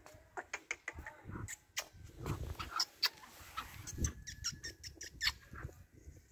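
Male black francolin giving a run of short, sharp clucking clicks at irregular intervals, with low rustling between them.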